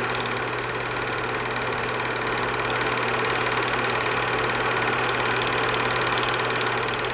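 Film projector running: a steady, fast mechanical clatter over a low hum.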